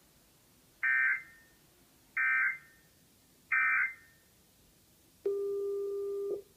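Emergency Alert System end-of-message data bursts: three identical short, shrill digital chirps about a second and a half apart, which mark the close of the alert. Near the end a steady low tone sounds for about a second and cuts off.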